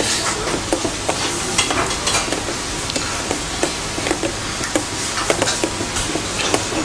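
Wire whisk beating a mashed-potato and flour batter in a bowl by hand: a quick, irregular run of small clicks and scrapes over a steady background hiss.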